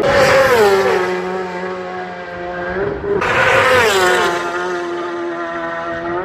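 Racing motorcycles passing at full speed, twice: each engine's pitch drops sharply as the bike goes by, then holds steady as it pulls away.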